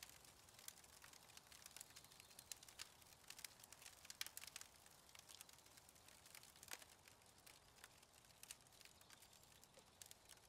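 Faint, irregular crackles and pops from a campfire's embers, with bacon cooking on a wire grill over the coals.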